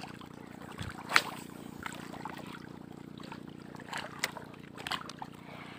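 A boat engine running with a steady low hum. Scattered light clicks and ticks sound over it, the sharpest about a second in.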